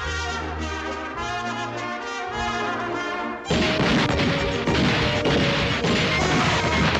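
Cartoon orchestral score with trombones and trumpets playing. About halfway through, a loud crashing sound effect breaks in suddenly and goes on as a dense clatter of many hits over the music.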